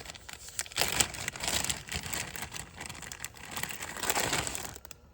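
Packaging crinkling and rustling in irregular crackles as newly delivered replacement parts are unwrapped, stopping near the end.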